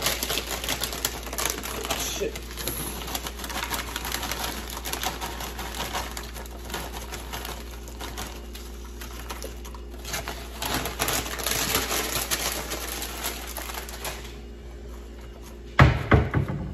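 Rapid clicking and crinkling of plastic as food is handled and packed into a plastic lunch container, with a few loud knocks near the end.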